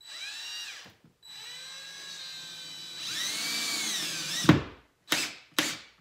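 Cordless drill/driver driving screws in spurts: a short run that speeds up, then a longer run that bogs and grows louder as the screw bites, ending in a sharp knock about four and a half seconds in, followed by two short blips of the motor.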